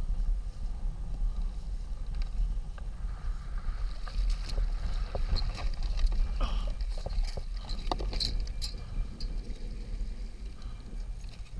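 Steady low rumble of wind and water, then from about four seconds in a run of clanks and rattles as a wire crab trap full of Dungeness crabs is hauled aboard the kayak.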